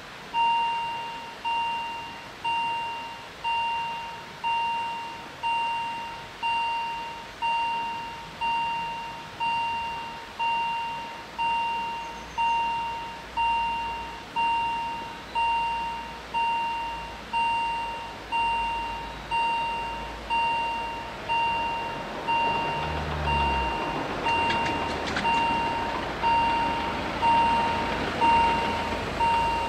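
Level-crossing warning bell ringing about once a second, each single-tone ding fading away, as the crossing closes for an approaching train. About 22 seconds in, a car drives across the crossing, and the bell carries on over its noise.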